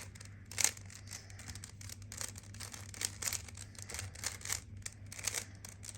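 Rubik's Cube being turned quickly by hand: irregular plastic clicks and scraping of the layers, several a second, over a faint steady hum.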